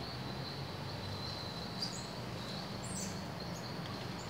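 Outdoor ambience with a steady high insect drone. A few short, high chirps come about two and three seconds in.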